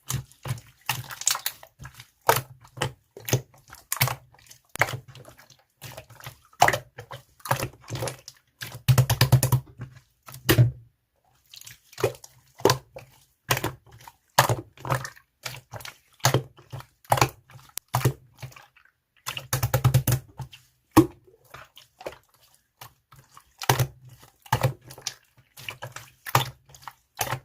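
Slime being pressed, poked and folded by hand, making a run of wet clicks and pops, a few a second, with denser crackling stretches about nine and twenty seconds in.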